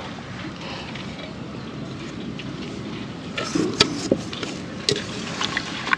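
Metal kitchen vessels knocking and clinking together as they are handled: a few sharp knocks in the second half, over steady background noise.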